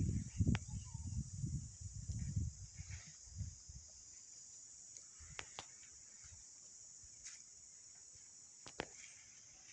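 Steady high-pitched drone of insects, with low rumbling in the first two or three seconds and a few faint clicks.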